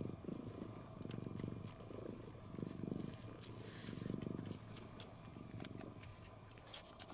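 Domestic cat purring close up, swelling and easing with each breath about every second and a quarter, and growing softer after about four and a half seconds.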